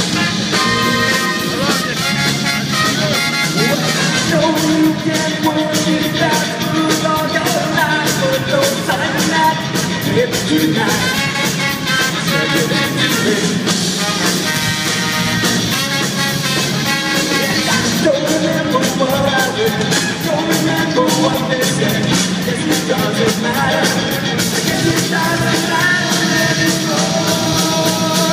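Live ska-rock band playing: trumpets and trombone over electric guitar, bass guitar and drums, without a break.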